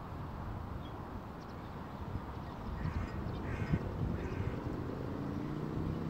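Wind rumbling on the microphone, with a few short quack-like waterbird calls near the middle. A low steady hum rises in near the end.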